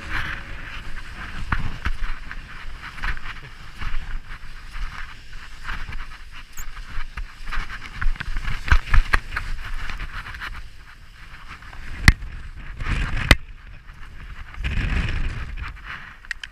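Snow hissing and scraping under a climber sliding down a snow slope in crampons, with uneven crunching scrapes and two sharp knocks near the end.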